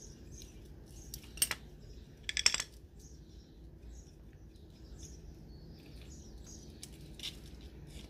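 Birds chirping in the background, broken by a sharp metallic click about a second and a half in, a short rattle just after, and a fainter click near the end.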